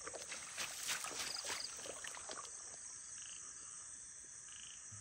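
Night chorus of frogs and insects: a steady high buzz with short pulsed trills now and then. Over the first two seconds or so, water splashes and drips as it is disturbed.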